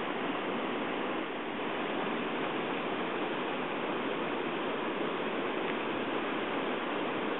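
Steady rush of river rapids, running water making a constant, even noise.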